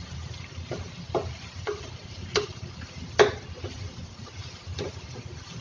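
A spoon stirring chicken in a cooking pan, with scattered knocks and scrapes against the pan, the loudest a little past three seconds in, over a steady low rumble.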